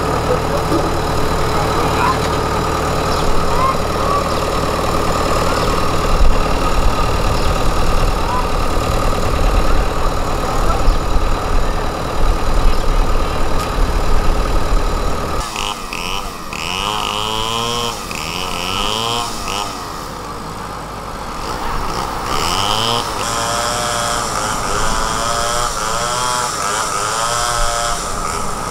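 Cat 312 excavator's diesel engine running steadily; about halfway through, the engine note starts rising and falling again and again.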